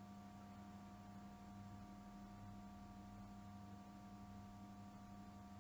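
Near silence: room tone with a faint, steady electrical hum of a few unchanging tones.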